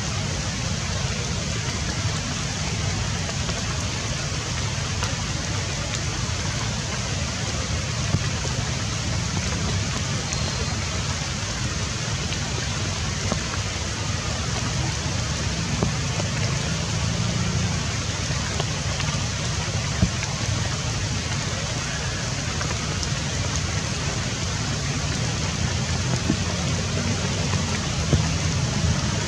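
Steady outdoor background hiss with a low rumble underneath, unchanging throughout, broken by a few faint ticks.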